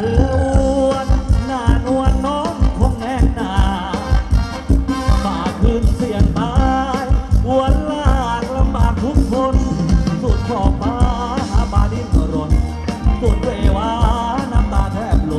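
Thai ramwong dance music from a band: a singer's melody over a steady, driving drum and bass beat.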